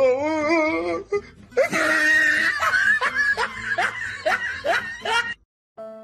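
A person laughing hard: a drawn-out wavering laugh, then a run of short rising bursts about three a second. It cuts off suddenly near the end, and soft string music begins.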